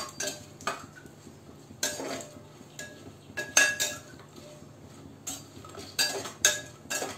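Perforated metal ladle scraping and clinking against the inside of a pressure cooker while stirring cashews and raisins roasting in ghee; irregular sharp knocks and scrapes.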